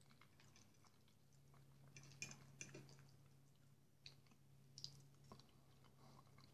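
Faint close-up eating sounds: chewing and small mouth clicks as soft jellied meat (kholodets) is eaten, with scattered light clicks of a metal spoon against a clay bowl. A low steady hum runs underneath.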